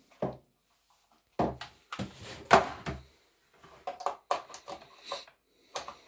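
Handling clatter of a new electric kettle's plastic power base and cord on the worktop: a knock, a run of louder knocks and rattles with the loudest about two and a half seconds in, then lighter clicks and taps.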